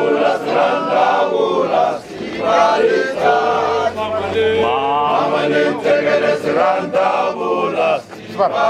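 A ZCC Mokhukhu men's group chanting and singing together, many male voices in a loud group chant, with short breaks between phrases about two seconds in and near the end.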